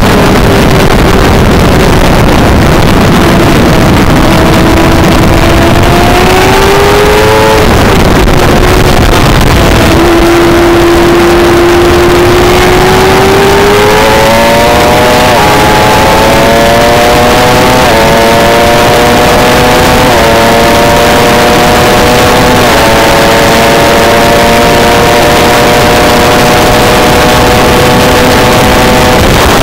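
600cc racing sport bike engine heard from onboard at speed, held at high revs through corners and then pulling hard through four upshifts. Each upshift is a quick drop in pitch followed by a steady climb. Heavy wind noise on the microphone.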